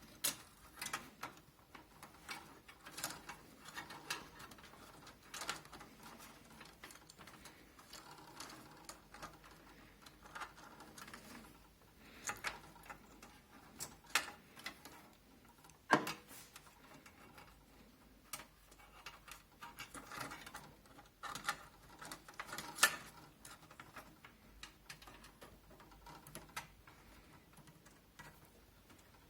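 Scattered light clicks, taps and rustling from hands working inside a Zalman Z11 Neo computer case while a case fan's cable is routed, with a few sharper knocks in the second half.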